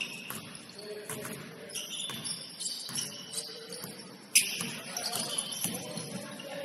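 Basketball game sounds: the ball bouncing on the court, short high sneaker squeaks, and scattered voices, with one sharp loud bang about four seconds in.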